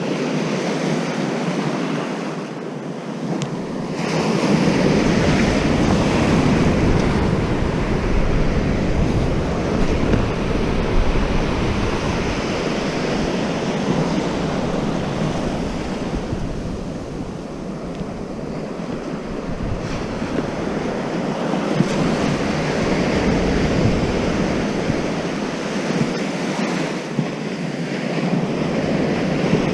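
Surf breaking and washing up a sandy beach, swelling louder and easing off in long surges, with wind buffeting the microphone.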